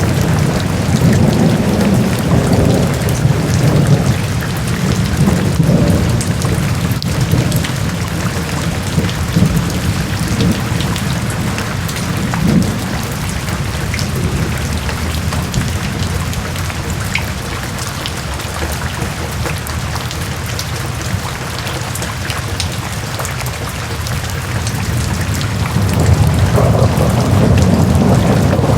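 Heavy rain falling steadily, a dense patter of drops, under a low rolling rumble of thunder that eases off in the middle and swells again near the end.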